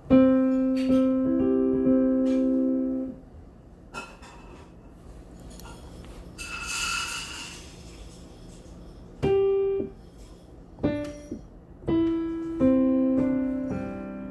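Piano keys struck: a held chord at the start, a pause, then a few single notes and further held chords near the end. A short hissy sound comes in the quiet stretch in the middle.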